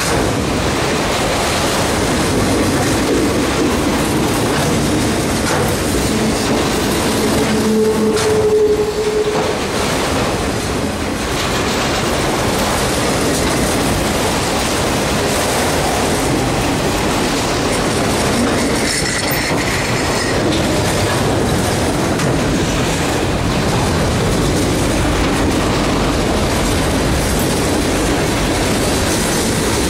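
Freight train cars rolling past on steel rails: a steady loud rumble with wheels clattering over the rail joints. About eight seconds in there is a brief steady squeal.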